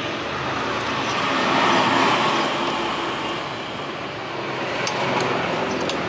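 Steady road traffic noise, swelling about two seconds in as a vehicle passes, with a few faint clicks near the end.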